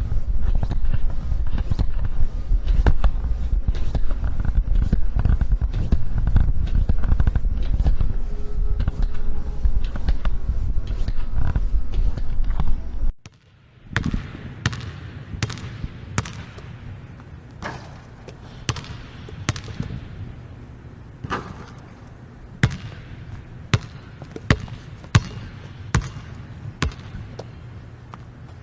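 Basketball bouncing on a hard court. For about the first half, many quick bounces sound over a loud low rumble. After a sudden cut, single bounces follow at irregular spacing, each with a short echo.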